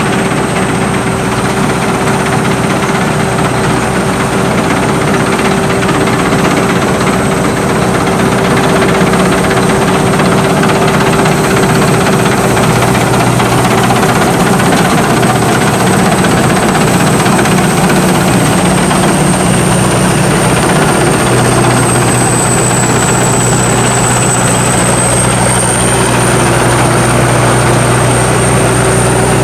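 Sakpattana SS-300 rice combine harvester, with its five-cylinder 170 hp diesel engine and threshing machinery, running steadily under load, with a constant high whine over the engine noise.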